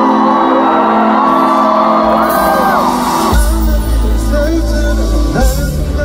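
Live pop concert music in an arena, loud, with singing and the audience shouting and whooping. A heavy bass comes in suddenly about halfway through.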